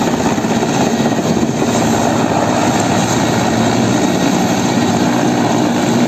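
Large military helicopter's rotor and turbine engines running loudly and steadily as it hovers low and settles to land, with a steady low hum through the noise.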